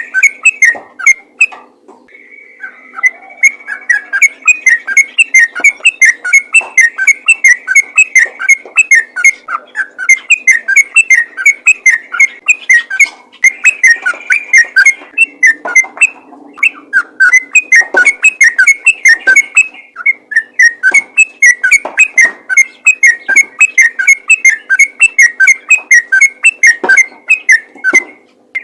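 Yellow-vented bulbul (trucukan) singing in rapid 'ropel' style: a fast, almost unbroken run of short notes, several a second, with a few brief breaks. It is the kind of busy song bird keepers play to set other bulbuls singing.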